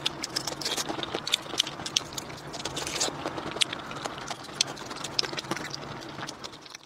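Close-miked eating sounds from a clip-on microphone: wet chewing, lip smacks and sucking on raw shrimp coated in chili sauce, with many sharp mouth clicks. It cuts off abruptly near the end.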